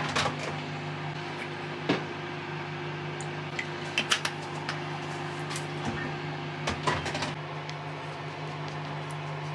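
A steady mechanical hum from a running household appliance, with a few light clicks and knocks scattered through it, the busiest cluster around 4 seconds and 7 seconds in.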